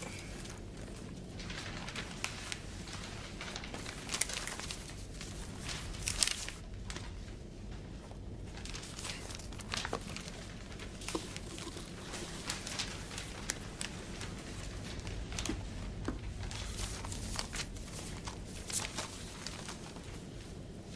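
A sheet of paper rustling and crinkling in short, irregular bursts as it is handled, over a low steady hum.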